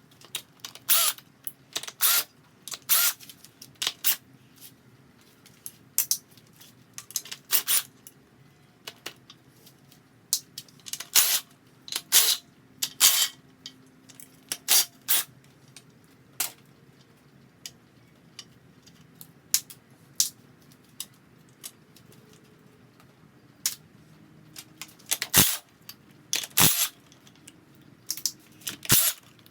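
Hand tools and small metal parts clinking and clattering on the aluminum engine case: irregular sharp metallic knocks, some in quick clusters, with quiet gaps between.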